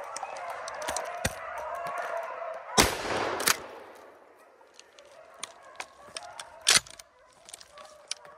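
A pack of rabbit hounds baying in the distance while running a swamp rabbit. A gunshot goes off about three seconds in, with a second sharp crack half a second later and another near seven seconds.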